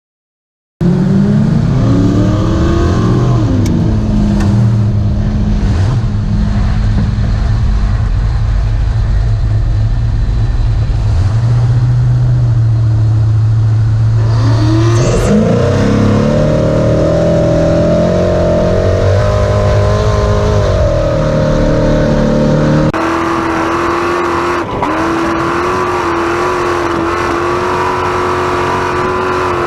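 Class 1450 Ford Ranger race truck's engine running hard off-road, starting about a second in. Its pitch climbs and drops as it revs and shifts, then holds a steady note. The sound changes abruptly about 23 seconds in, to a steadier, higher engine note.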